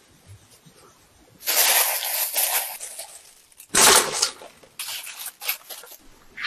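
Fine granulated sugar sprinkled over bread cubes with a soft hiss starting about a second and a half in. Then bread cubes are poured out onto a baking sheet, landing in a loud tumbling rush about four seconds in, followed by a few shorter rattles as the last cubes fall.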